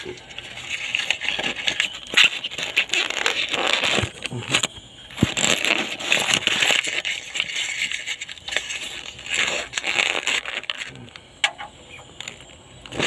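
Homemade puller being worked to draw a broken injector sleeve out of a Cat 3116 cylinder head: metal grinding and clicking in three long spells, then quieter near the end.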